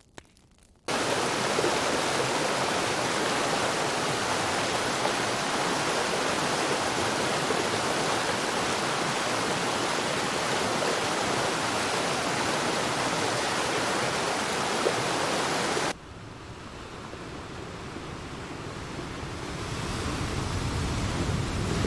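Rushing stream water, a steady dense rush that starts abruptly about a second in. About sixteen seconds in it cuts off, and quieter ocean surf follows, slowly swelling.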